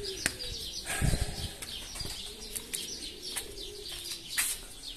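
Domestic pigeons cooing in a loft, a low wavering murmur, with many short high chirps throughout, several sharp clicks and a low thump about a second in.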